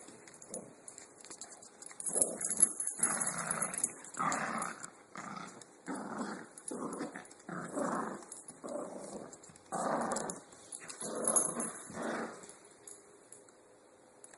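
Dogs growling in play while tugging a toy, about ten rough growls in quick succession that stop near the end.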